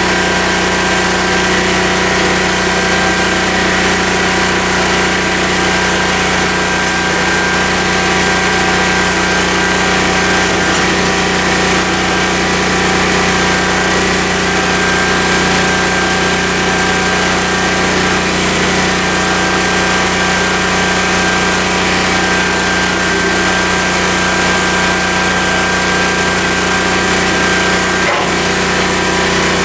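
Portable generator engine running steadily at one even pitch, loud and unbroken.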